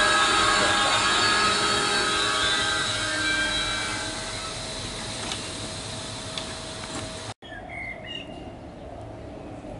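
Passenger coaches of a Trenitalia regional train rolling slowly to a stop, with wheels and brakes squealing in high ringing tones that die away over about five seconds. After an abrupt cut, quieter station ambience follows with a few short bird chirps.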